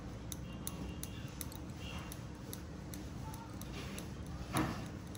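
A scraping blade working on a thick, fungus-infected toenail, with one short louder scrape about four and a half seconds in, over a steady fast ticking about three times a second.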